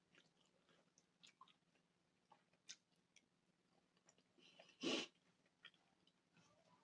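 Quiet, close chewing of soft stuffed bell pepper and mashed potato, with many faint small clicks, and one brief louder sound about five seconds in.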